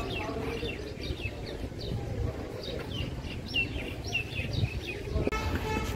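Small birds chirping busily in quick, short, falling notes over a low background rumble. Near the end, just after a brief break, a short buzzing tone.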